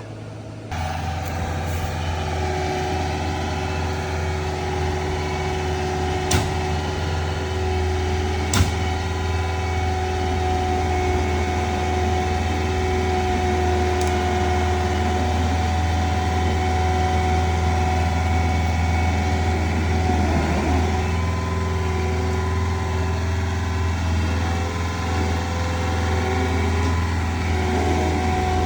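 A heavy work machine's engine running steadily at a constant speed. Two sharp knocks come about six and eight and a half seconds in.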